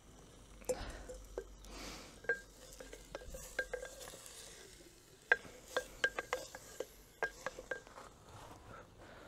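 A spoon stirring beef and onions in an earthenware Roman-style BB2 cooking jar, knocking against the pot's inside wall. It gives a string of sharp, short clinks that come thickest from about halfway through.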